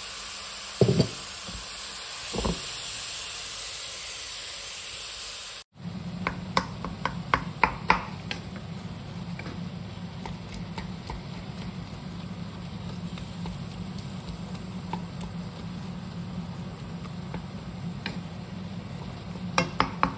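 Minced pork and a splash of water sizzling and hissing in a hot non-stick pan, with two dull knocks in the first few seconds. After a sudden break about six seconds in, a wooden spatula scrapes and taps against the pan as the meat is stirred, with a steady low hum underneath.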